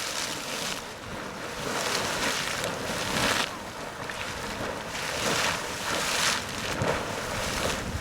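Sawmill Geyser erupting: splashing bursts of hot water that overlap, the noise rising and falling in irregular surges every second or so.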